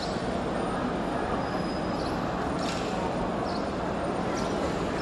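Steady hubbub of a large crowd echoing through a vast marble-floored mosque hall, with faint short high chirps recurring about once a second.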